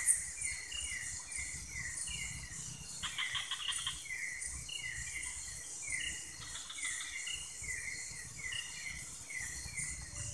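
Night chorus of crickets and other insects: a steady high-pitched buzzing, with a short falling chirp repeating about twice a second and a brief rattling trill about three seconds in.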